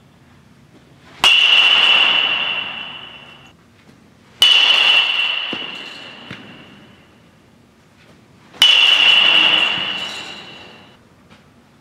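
Three hits of a metal baseball bat on a baseball, each a sharp crack followed by a high ping that rings on and fades over about two seconds.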